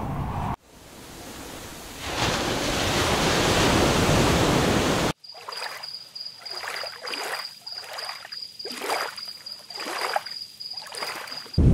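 Sea sounds. For about five seconds there is an even rushing noise of surf and wind. Then it switches sharply to small waves lapping on a rocky shore, a wash every second or so, with a steady high-pitched whine above them.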